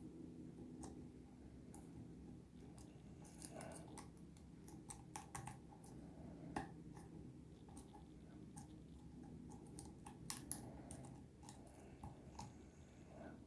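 Faint, irregular small clicks of lock picks working in the pin-tumbler cylinder of a 6-pin ABUS Extreme padlock as it is being picked.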